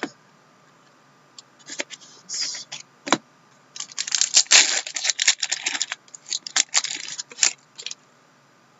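Trading-card packs and cards being handled: crinkling and rustling of wrappers, with scattered clicks and a sharp click about three seconds in, densest a little past the middle.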